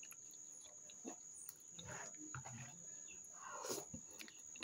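Faint wet chewing and lip-smacking of a person eating stewed cow's foot, with soft scattered clicks and a couple of slightly louder mouth sounds in the middle and near the end.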